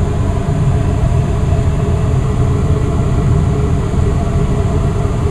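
Westinghouse gas furnace running with its blower fan on high speed: a steady, even low rumble of moving air.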